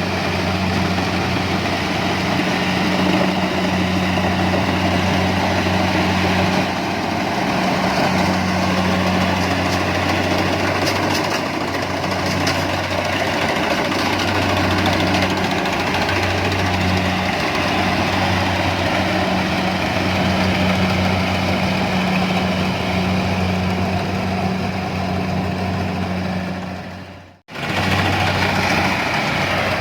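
A harvesting machine's engine running steadily at an even speed, with a deep hum. It drops out briefly near the end and then comes back unchanged.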